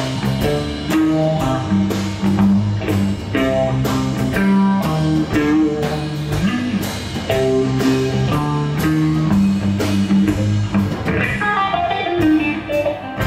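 Instrumental break from a live band: a hollow-body electric guitar plays a line of single notes over bass guitar and drum kit with cymbals, ending in a falling run of notes near the end.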